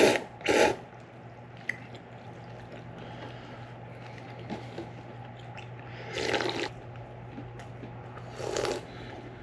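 Slurping of cold naengmyeon noodles right at the start, then two short slurping sips of the cold noodle broth later on, the second drunk straight from the bowl.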